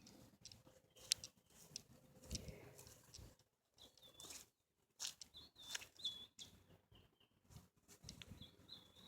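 Near silence: faint scattered clicks and rustles, with a faint high chirping that starts about four seconds in.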